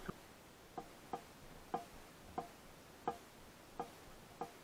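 Faint, regular ticking, seven short sharp ticks about every two-thirds of a second, over a faint steady hiss.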